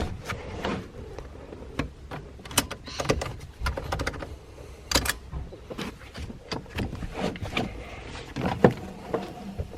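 Newly fitted passenger seat belt in a Nissan GU Patrol being tested: the webbing is pulled from the retractor and the metal tongue is clicked into the buckle, giving a run of sharp clicks and rattles.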